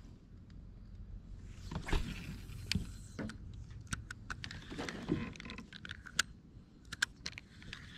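Irregular small clicks and light knocks, with two louder rustling thuds about two and five seconds in, from fishing gear and a rod being handled in a plastic kayak.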